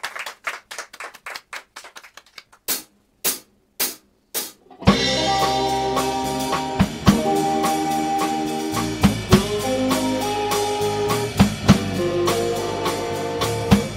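Drum kit count-in of light ticks, then four sharper clicks a little over half a second apart. About five seconds in, a live band comes in: electric guitar, bass guitar and drum kit playing an instrumental rock piece.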